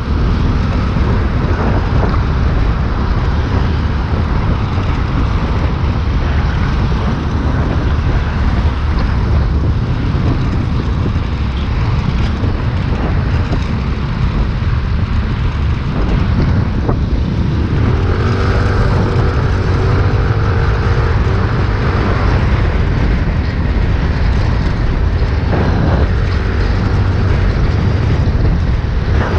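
Motor scooter riding through road traffic: steady wind rushing on the microphone over engine and tyre noise. A wavering hum comes in for a few seconds about two-thirds of the way through.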